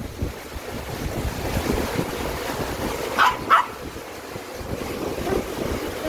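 A Maltese dog barks twice in quick succession, two short yaps about three seconds in, over the steady rush of a shallow mountain stream.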